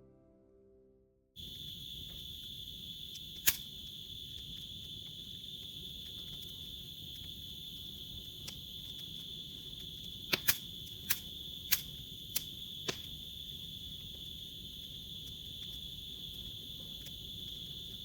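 Steady high-pitched chorus of crickets, with sharp clicks about three and a half seconds in and a quick run of clicks around the middle. The last notes of the outro music fade out just before the crickets come in.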